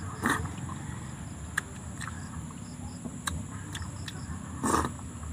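Close-miked eating from a metal pan: a few sharp clicks of a fork and spoon against the pan and two short mouth noises of chewing, one just after the start and one near the end. A steady high insect drone runs underneath.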